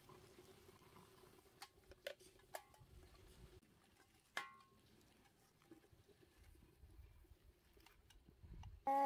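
Quiet room with a few light taps, and about four seconds in a ringing metallic clink, from a baby handling and mouthing an aluminium drink can. A loud wavering call starts right at the end.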